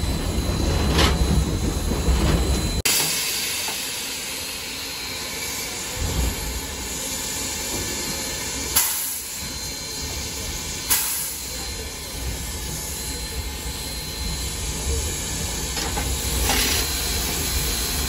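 In the cab of Southern Railway steam locomotive 4501, a loud low running rumble cuts off abruptly about three seconds in. It gives way to a steady hiss of steam, broken twice by sharp knocks.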